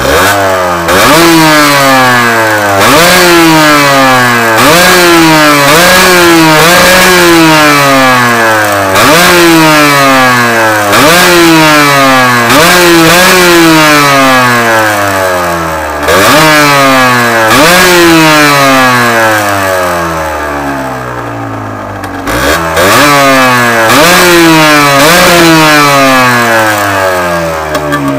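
Yamaha DT 125 R two-stroke single-cylinder engine with a Gianelli exhaust silencer, revved over and over in quick throttle blips: each time the revs shoot up sharply and fall back more slowly, about every one to two seconds, with a couple of longer spells where it settles lower toward idle.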